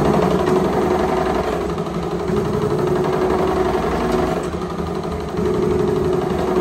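A motor-driven machine or engine running steadily with a fast, even rattle over a steady hum; it starts abruptly just before this.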